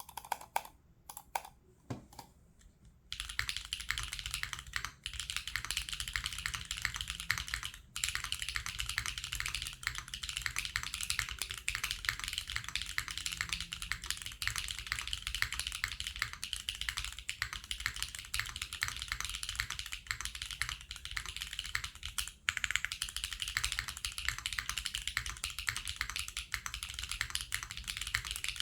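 Neo60 Core custom mechanical keyboard being typed on: a gasket-mounted aluminium plate with no foam, tactile switches and GMK keycaps giving a clacky sound. A few separate key presses open it, then fast continuous typing starts about three seconds in, with a few short pauses.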